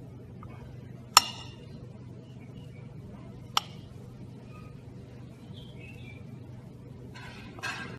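Two sharp clicks about two and a half seconds apart, from a utensil striking a plate, over a steady low hum, with a few faint chirps and a short rustle near the end.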